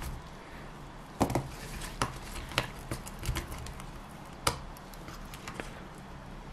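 Irregular light taps and knocks of a wooden popsicle stick and plastic cup against a 3D-printed mould as silicone sealant is worked into it, the sharpest knock about four and a half seconds in.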